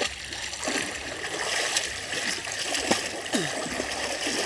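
Shallow river water splashing and sloshing as a bather comes up from under the surface and crawls through it on hands and knees, with scattered gurgles.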